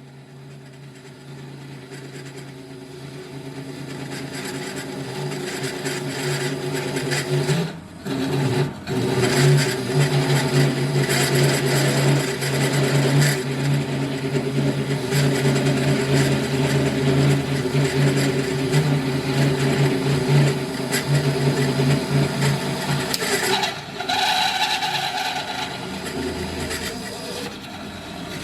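Nova Viking drill press motor running while a cutter bores through steel, a steady hum under a harsh grinding cut. The cut builds over the first several seconds, breaks off briefly, then runs hard before easing off near the end.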